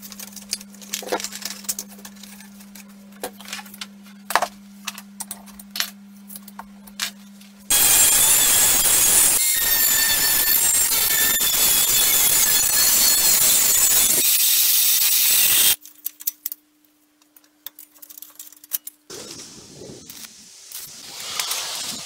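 Light clicks and taps of metal parts being fitted by hand over a low steady hum. Then, about eight seconds in, an angle grinder with a cut-off disc cuts thin metal sheet with a loud, hissing screech for about eight seconds and stops abruptly. Near the end come soft scraping and handling sounds of the sheet metal.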